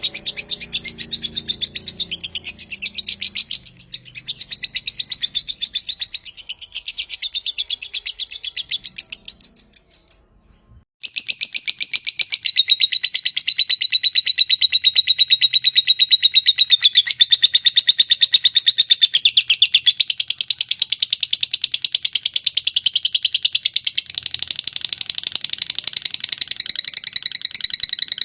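Lovebird 'ngekek' chatter: a long, unbroken run of fast, evenly pulsed high chirps. It stops briefly about ten seconds in, then a louder run starts and holds a steady pitch.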